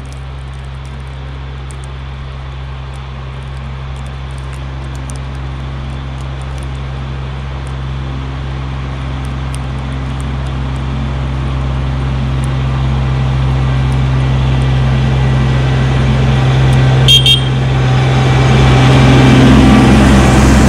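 Kubota LX2610 compact tractor's diesel engine running and growing steadily louder as the tractor approaches and passes close by. About 17 seconds in there are two short horn toots.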